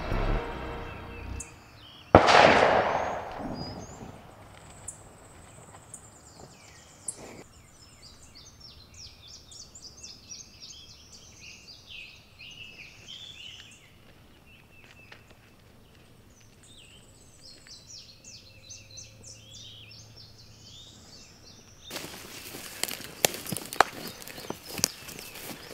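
A single shotgun shot about two seconds in, with a short echoing tail, followed by songbirds chirping and calling. Near the end come rustling and sharp clicks of movement and handling.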